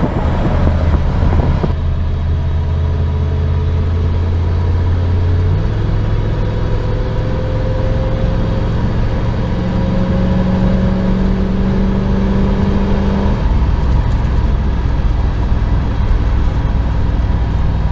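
1994 Chevy Silverado's 5.7-litre 350 V8 running while the truck is driven, with a steady engine note that changes pitch at about five and a half seconds and again near thirteen seconds. The engine is running on a fresh Seafoam fuel treatment.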